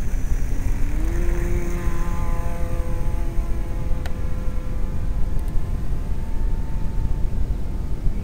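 Electric motor and propeller of a radio-controlled Cessna 182 scale model whining, rising in pitch about a second in, holding steady, then fading. Heavy wind rumble on the microphone underneath, and one sharp click about four seconds in.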